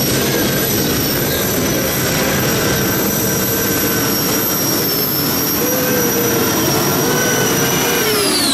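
Tractor-pulling machine running flat out under load: a loud, steady engine sound with a high whine over it. About eight seconds in, the whine and engine sound drop steeply in pitch as the power comes off.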